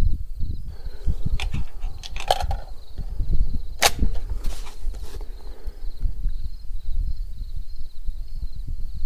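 Metallic handling of an AR-style rifle: a few light clicks as a single cartridge goes in by hand, then one sharp metallic clack about four seconds in as the bolt closes. A steady low wind rumble on the microphone runs under it.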